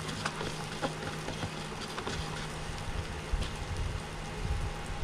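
Wheat-flour pancake batter frying in a little oil in a nonstick pan: a steady sizzle with scattered light crackles, over a low steady hum.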